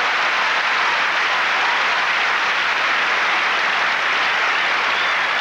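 Large tennis crowd applauding steadily, an even wash of clapping.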